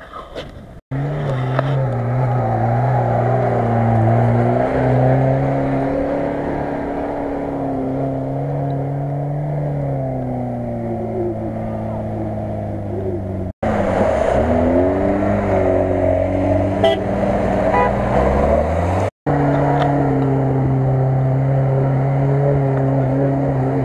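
Off-road 4x4 engines running hard under load, heard in three stretches separated by abrupt cuts. The engine note holds steady for long spells. In the middle stretch it drops and then climbs again as the driver revs. The last stretch is a Lada Niva's engine as it drives along the water's edge.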